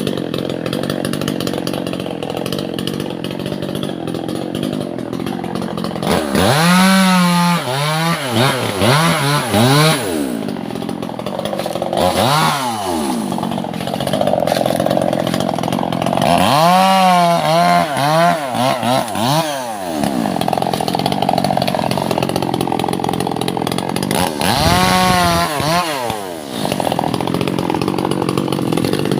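Two-stroke chainsaw idling steadily, then revved up and down over and over, its pitch climbing and falling in several spells. It is working on albasia (sengon) timber.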